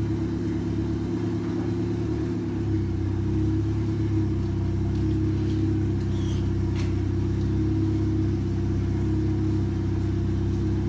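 Turbocharged Honda four-cylinder engine idling steadily on a cold start. Its idle shifts slightly about two and a half seconds in.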